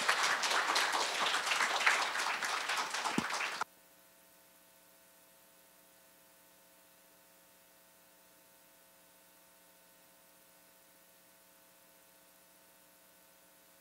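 Audience applauding, cut off suddenly after about three and a half seconds. A faint steady electrical hum follows.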